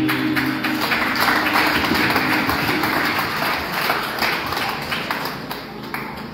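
Audience applauding, a dense patter of clapping that fades out over several seconds, as the last notes of the performance music die away in the first second.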